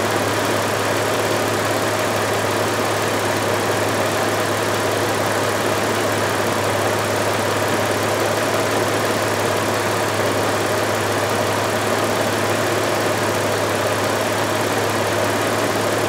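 2000 Audi A6's 2.8-litre V6 idling steadily, warmed up, with an even hum.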